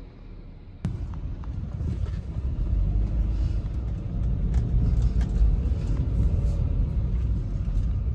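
Car on the move: a steady low engine and road rumble heard from inside the car, coming in abruptly about a second in and growing a little louder.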